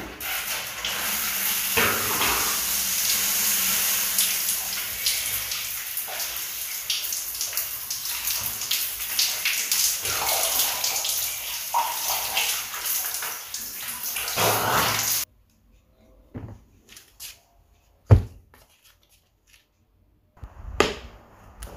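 Shower water spraying steadily onto a person in a tiled shower, an even hiss of running water. It cuts off suddenly about fifteen seconds in, leaving near silence broken by a few short knocks.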